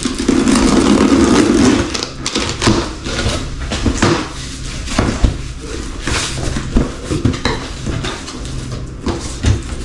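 Packaging around a new car headlight housing being handled and opened: a scrape or rub for about two seconds, then a string of irregular knocks, clatters and rustles.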